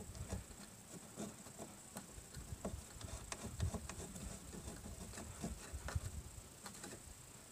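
Faint, scattered light clicks and taps of a gloved hand refitting the protective cap on the fuel filter's pressure-bleed valve, with a faint steady hiss underneath.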